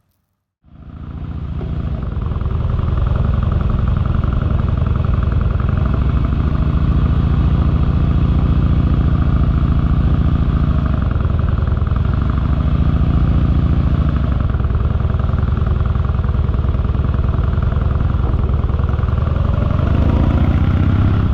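Harley-Davidson motorcycle engine running with a fast, low, steady pulse. It comes in suddenly about half a second in, with slight rises and falls in pitch around the middle.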